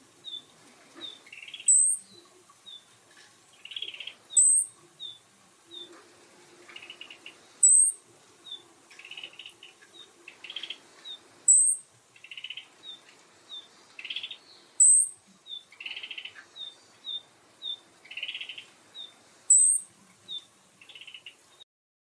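Small songbirds calling: six loud, very high, sharp notes a few seconds apart over many quick short chirps and buzzy trills. The calling stops abruptly near the end.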